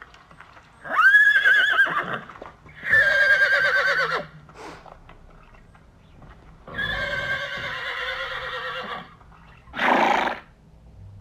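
Horse whinnying several times: two high calls with a quavering pitch in the first few seconds, a longer call of about two seconds midway, and a short, harsher call near the end.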